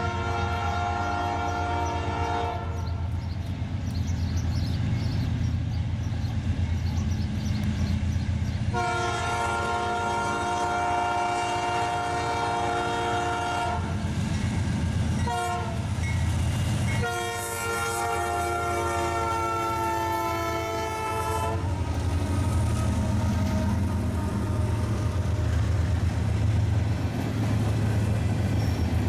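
Locomotive air horn chord sounding four blasts: long, long, short, long, the standard grade-crossing signal. Under it runs the steady low rumble of the passing train.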